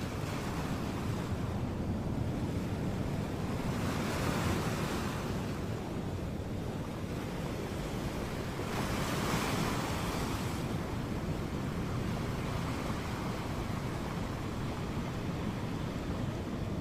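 Ocean surf breaking on a beach: a steady rush of waves over a low rumble, with two waves breaking louder about four and about nine seconds in.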